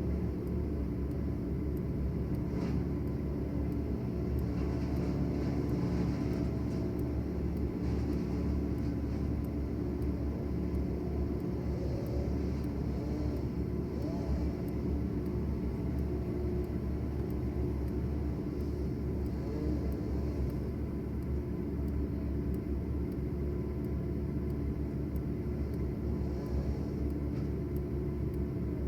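A large engine running steadily at a constant speed, a low rumble that holds even throughout.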